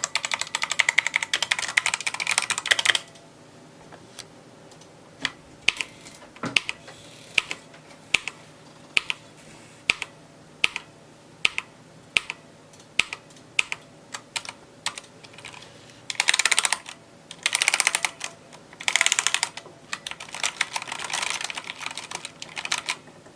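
Redragon K552 mechanical keyboard with red switches being typed on. It opens with a fast run of keystrokes, slows to single key presses about one a second, then picks up again into short rapid bursts of typing.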